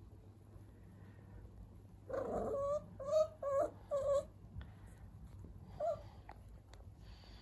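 A puppy giving a quick run of four short, high-pitched whiny barks about two seconds in, then one more near six seconds.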